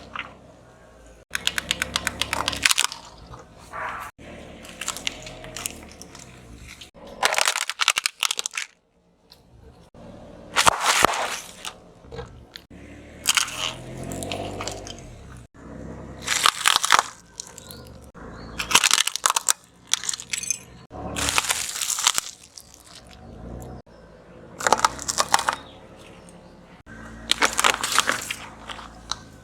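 Objects being crushed under a car's tyres: about ten separate bouts of crunching and crackling as things break, each a second or two long, cut abruptly from one to the next.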